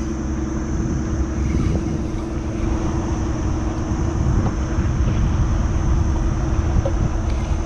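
A motor drones steadily, with a low rumble of wind on the microphone over it.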